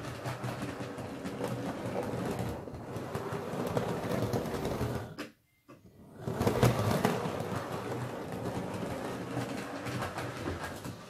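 Model railway locomotive running along the track: the whirr of its small electric motor with rapid clicking of the wheels over rail joints and points. The sound cuts out suddenly for about half a second just past the middle, then comes back louder.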